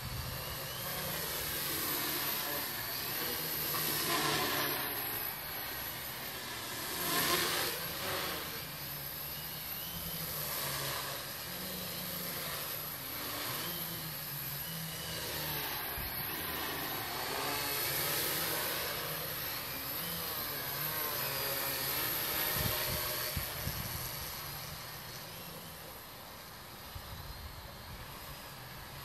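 Small home-built 450-size quadcopter's electric motors and propellers buzzing in flight, the pitch wavering up and down as the throttle changes. It swells louder in the first third and fades near the end as it flies farther off.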